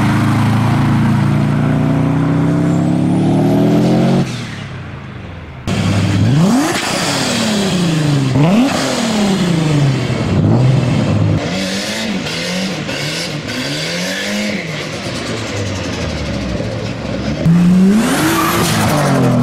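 Turbocharged car engines from three cars in turn. A Subaru Impreza rally car accelerates away with its engine note climbing steadily until a sudden cut about four seconds in. After a short quieter gap, a black Audi hatchback revs in quick rises and drops through its gear changes, and near the end a Nissan Skyline R34 saloon accelerates past with its note rising and then falling.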